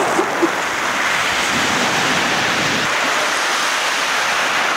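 Shallow sea surf washing in over the beach: a steady rushing hiss.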